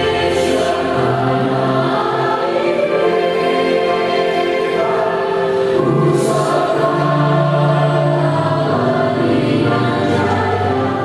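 A choir singing a slow piece in long held notes.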